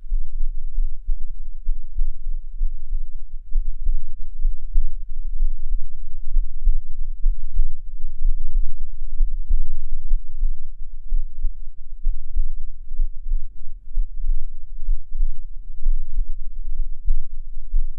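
A person's heartbeat picked up close on a binaural microphone: steady, soft low thuds about once a second over a deep rumble.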